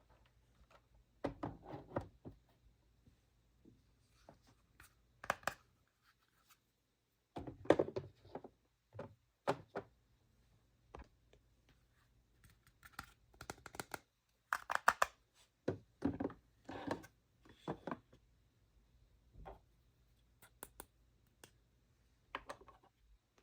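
Small plastic toy pieces being handled and set down: irregular clicks, taps and light knocks, some in quick clusters, with quiet gaps between.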